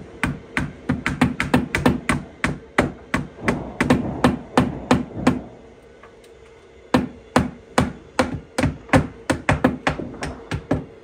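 Hand hammers driving nails into house siding: quick, sharp strikes, about four a second, stopping for about a second and a half midway before starting again.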